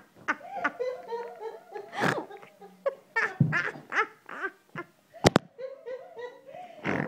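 Women laughing hard, in repeated short breathless bursts of giggles, with a sharp double knock a little past five seconds in.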